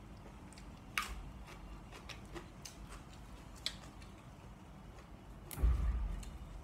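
Scattered small clicks and crackles as fresh vegetables are handled at the table: a shallot being peeled and green herb stems being snapped. A louder dull thump comes near the end.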